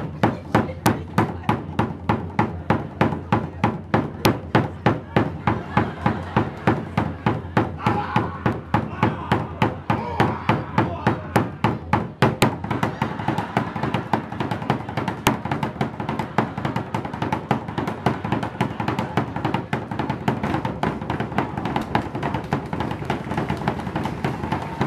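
Large Tongan standing drums beaten with sticks in a steady rhythm, about three strokes a second. A little before halfway the strokes grow denser and more even.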